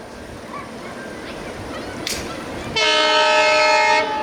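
Diesel locomotive air horn of the Benapole Express sounding one long blast, a little over a second, starting near the end, over the steady rushing noise of the passing train.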